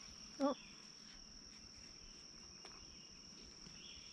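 Steady high-pitched drone of insects, with one short, loud pitched sound about half a second in.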